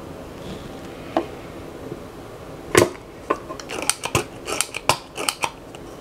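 Sharp clicks and taps of small metal hand tools handled at a soldering bench: one tap about a second in, then a louder click near the middle followed by a quick, irregular run of clicks.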